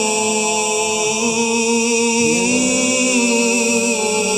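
Solo male voice chanting an Islamic ibtihal, holding one long melismatic note that wavers in ornament and steps up slightly in pitch about halfway through.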